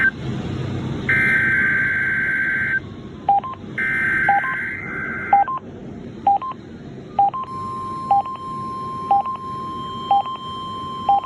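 Weather radio test signal heard over a radio receiver. Two buzzy digital data bursts come first, and a steady alarm tone near 1 kHz, the warning alarm that switches on special receivers, starts about 7 seconds in. Short beeps repeat about once a second over both.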